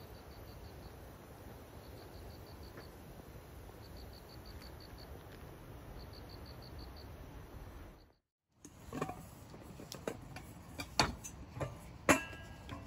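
Insects chirping in short trains of rapid, high pulses about every two seconds over a steady outdoor hiss. After a brief cut, metal clinks and a ringing clank come from a Coleman stainless steel cooking pot and its domed lid being handled.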